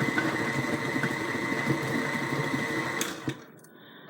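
Electric mixer running steadily with a constant whine as it beats cookie dough, switched off with a click about three seconds in.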